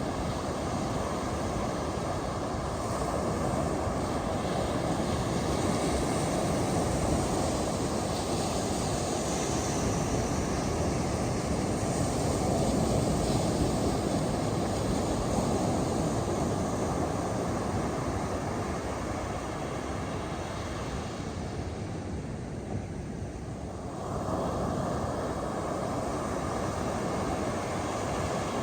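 Ocean surf breaking and washing up a beach: a steady rushing noise that swells and eases slowly, with the hiss briefly dropping away about twenty-two seconds in.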